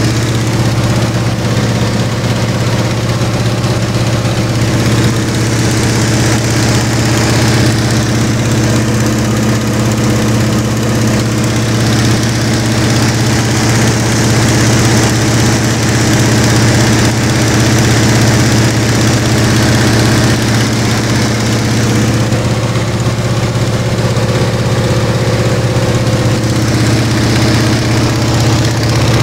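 Antonov An-2 biplane's nine-cylinder radial engine and propeller running steadily in flight, heard from inside the cockpit as a constant low drone.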